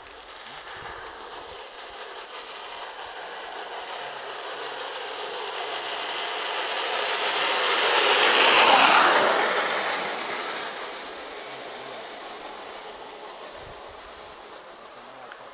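Homemade wooden downhill cart on ball-bearing wheels rolling on asphalt. Its rolling noise rises as it approaches, is loudest about eight to nine seconds in as it passes, then fades away.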